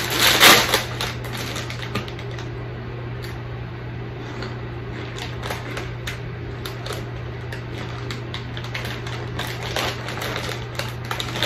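Plastic snack bag of corn sticks crinkling loudly as it is opened in the first second, then crackling in scattered short clicks as it is handled, over a steady low hum. The clicks come thicker near the end.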